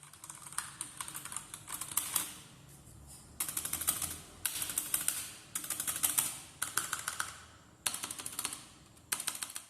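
Typing on a stock, unmodded Redragon K552 mechanical keyboard, its keys clacking in a run of rapid bursts with short pauses between them.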